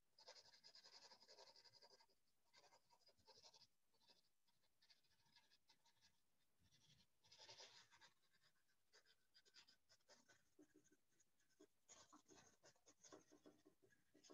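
Faint scratching of a graphite pencil shading on sketchbook paper, in runs of quick back-and-forth strokes with short pauses between.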